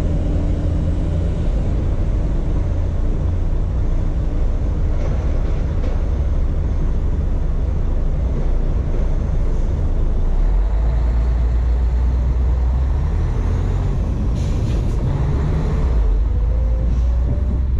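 Heavy truck's diesel engine idling with a deep, steady rumble, the engine note growing stronger as the truck moves off. A short hiss about three-quarters of the way through.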